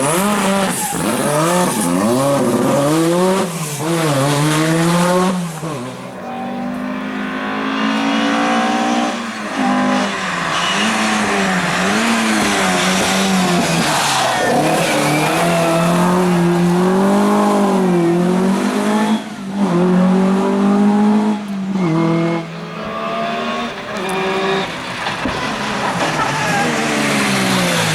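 Rally car engine revving hard, its pitch climbing and dropping again and again as it runs up through the revs and lifts off, with several short dips in level.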